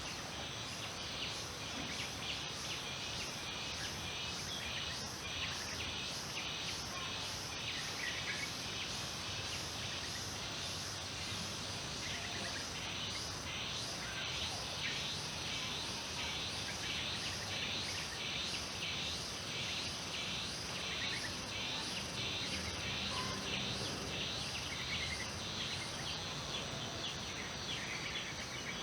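Insects chirping in even pulses, about two a second, over a steady outdoor background hiss. A few short, faint bird chirps come through now and then.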